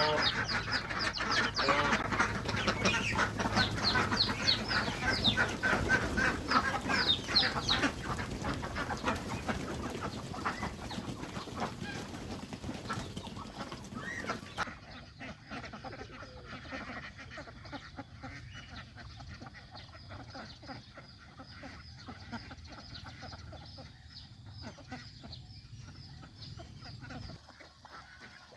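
Goslings peeping: many short, high, falling calls overlapping, loudest in the first eight seconds and fading, then fainter and sparser after an abrupt drop about fifteen seconds in.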